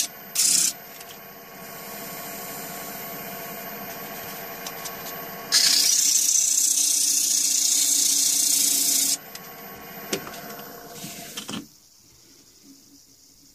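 Wood lathe motor running with sandpaper pressed against the spinning wooden blank: a loud rasping hiss briefly about half a second in and again for about three and a half seconds from the middle, with the motor's steady hum in between. Near the end the lathe is switched off and the sound stops.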